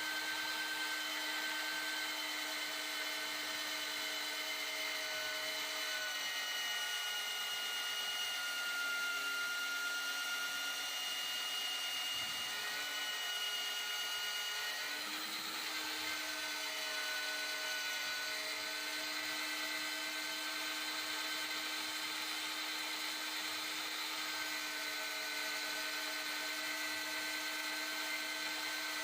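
Electric drill running steadily as it bores a hole in steel, a whine made of several held tones that dip and shift briefly about halfway through before settling again.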